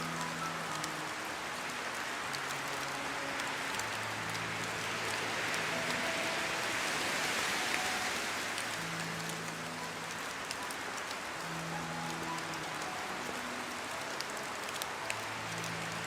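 Steady rain pattering on a surface, with scattered sharp drop hits and a gentle swell about halfway through. Soft music with long held low notes plays faintly underneath.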